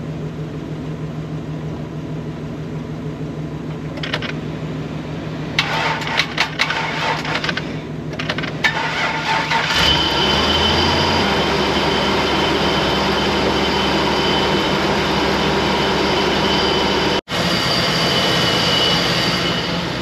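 A 6.0-litre pickup truck engine, jump-started on a battery charger's 200-amp boost, cranks for a few seconds and catches about ten seconds in. It revs briefly, then settles into a steady idle.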